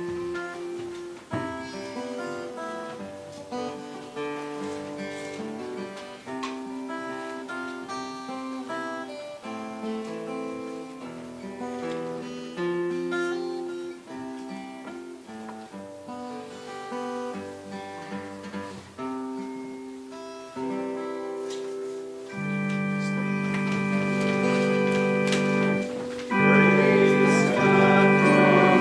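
Offertory music: an acoustic guitar picking a slow melody of single notes. About three-quarters of the way through, sustained organ chords come in and grow louder near the end.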